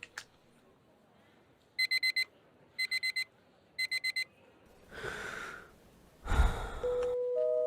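Electronic alarm clock beeping: three bursts of four quick high beeps, about a second apart. Then two breathy sounds like a gasp or yawn, the second louder with a low thump, and steady musical tones begin near the end.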